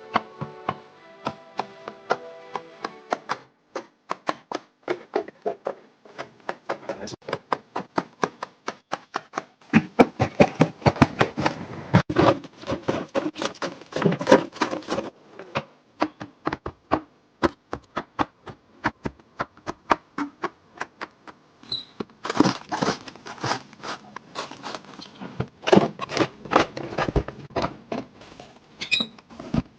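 Rapid light taps, clicks and knocks of food and containers being handled and set down during freezer restocking, coming in busy flurries. Soft background music plays under the first few seconds.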